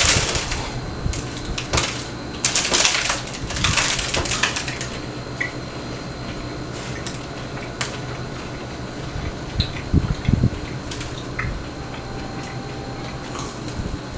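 Crunchy bites and chewing of a potato-crusted Korean corn dog: a few short crackly crunches in the first few seconds, then quieter chewing and a couple of soft thumps about ten seconds in, over a steady fan-like hum.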